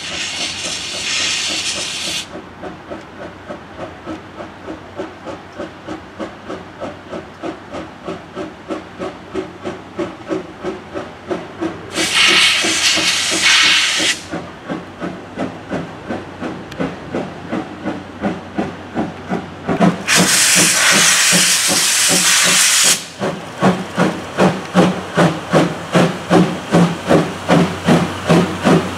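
JNR Class C11 steam tank locomotive chuffing steadily at about two beats a second, the exhaust growing louder as it draws near. Three loud bursts of hissing steam from the cylinder drain cocks come near the start, about twelve seconds in and about twenty seconds in, each lasting two to three seconds.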